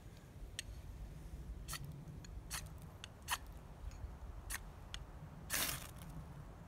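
Ferro rod struck with a steel striker over a tinder bundle: a series of short, sharp scrapes, then one longer, louder stroke about five and a half seconds in, throwing sparks to light the fire.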